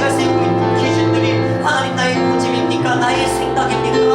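Instrumental background music: held chords with shorter notes played over them.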